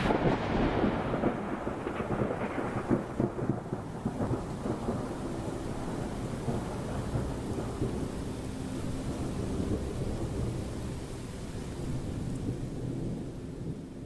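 A thunderclap rolling on as a long rumble that slowly dies away, with crackles in the first few seconds, over a steady hiss of rain.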